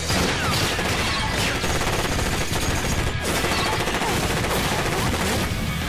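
Rapid gunfire from a rifle in one long unbroken volley, the shots following each other too fast to separate.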